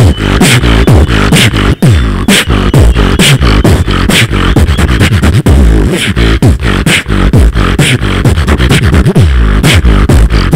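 Solo beatboxing amplified through a microphone and PA speakers: a steady, loud rhythm of heavy kick-drum and sharp snare sounds over deep bass tones that slide down in pitch again and again.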